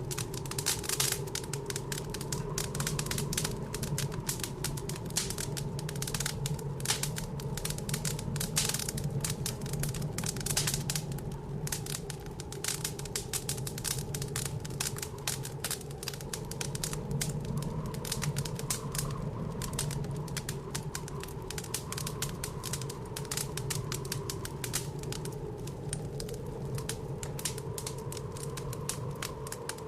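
Wood fire crackling with a dense run of small pops and snaps, over a steady low drone of blizzard wind that swells a little about two-thirds of the way through.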